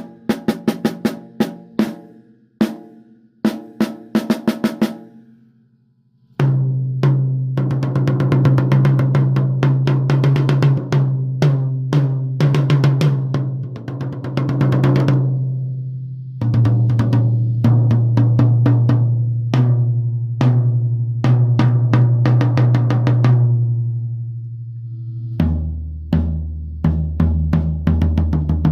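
Yamaha Stage Custom drum kit being sound-checked. A few separate hits come in the first five seconds, then, after a short pause, fast repeated strokes and rolls are played on one drum after another, each lower in pitch, with the deepest drum coming in near the end.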